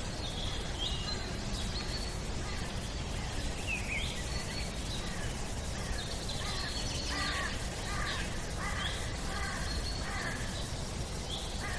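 Outdoor nature ambience: birds calling over a steady low background rumble. Short gliding chirps come and go throughout, and a run of about six lower, harsher calls comes in the middle.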